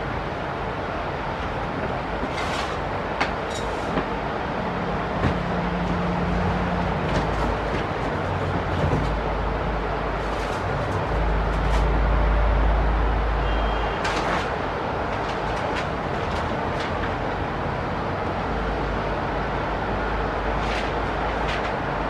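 Steady distant city traffic noise, with a low rumble swelling from about eleven to fourteen seconds in and a few faint scattered clicks.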